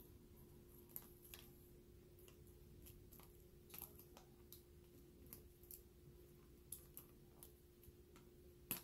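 Faint, scattered clicks and crinkles of clear plastic coin-album pocket pages and the silver half dollars in them being handled, over a steady low hum, with a sharper click near the end.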